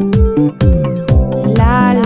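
Background music with a steady beat: a deep drum about twice a second over a bass line, and a higher melodic line near the end.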